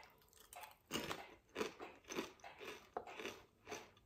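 A person biting into and chewing kettle-style potato chips: a run of short, irregular crisp crunches, two or three a second.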